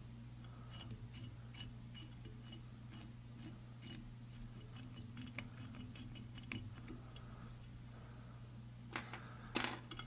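Faint, irregular ticking and scratching of Velcro hooks catching in the fly's dubbing as it is brushed over the nymph to rough up and pick out the fibres, with a sharper click or two near the end, over a steady low hum.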